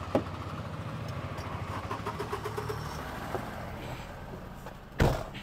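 Motor vehicle engine idling steadily, with one loud thump near the end.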